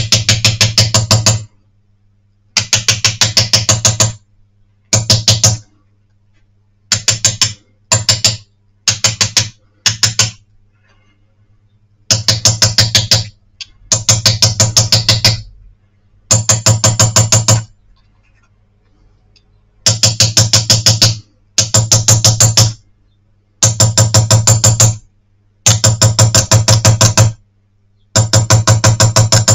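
Small hammer tapping rapidly on a steel setting punch (mateador), driving inlaid gold wire fully into the cross-hatched steel of a damascene piece so the steel closes over the gold. The taps come in quick runs of about eight ringing metal strikes a second, each run a second or so long, with short pauses between.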